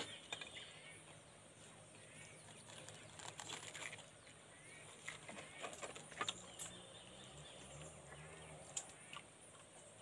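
Quiet outdoor ambience: a steady faint high hum, a few short bird chirps, and scattered small clicks and taps of plates and a metal pan as people eat with their hands.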